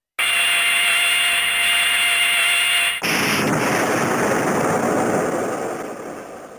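Electronic sound effect from an Ultraman Ace toy key's small speaker, played after its name call. A hissing effect with steady tones switches suddenly about three seconds in to a rough rushing noise that fades away near the end.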